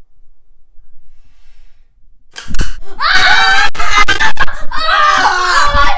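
Loud wordless yelling and shrieking by a boy's voice, starting about two and a half seconds in, with several sharp knocks and smacks mixed in.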